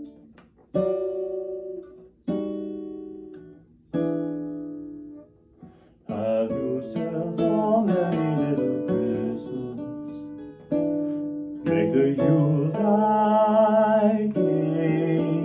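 Tacoma acoustic guitar played fingerstyle: single chords are plucked and left to ring out, about one every second and a half. From about six seconds in the playing grows busier and fuller, with a singing voice joining near the end.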